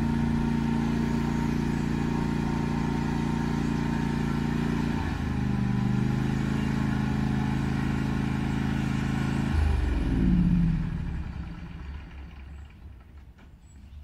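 John Deere LA135 riding lawn mower's engine running steadily, stepping down to a lower speed about five seconds in. About ten seconds in it winds down in a falling pitch and stops, as when it is switched off.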